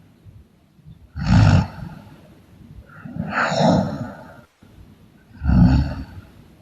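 A sleeping person snoring loudly: three snores about two seconds apart, the middle one the longest.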